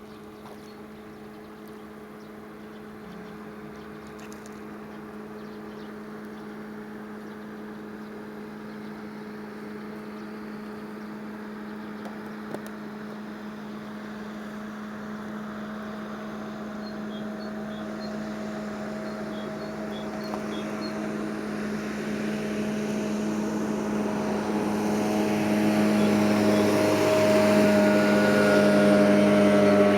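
A motorboat engine drawing closer, its steady hum growing louder and louder.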